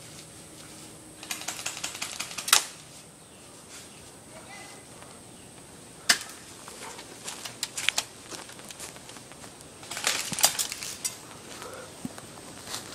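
Airsoft guns firing: rapid strings of sharp clicking shots, in two bursts about a second in and near the end, with single shots between. The loudest is one sharp snap at the end of the first burst.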